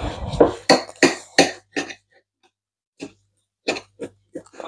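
Kitchen knife sawing through raw pork ribs on a plate: a quick run of rasping cutting strokes, about three a second for two seconds, then a few single strokes near the end.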